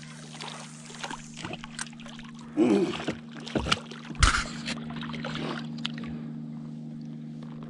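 Small channel catfish splashing and thrashing at the surface as it is reeled to the boat and swung out of the water. There are several loud splashes and knocks between about two and a half and four and a half seconds in, over a steady low hum.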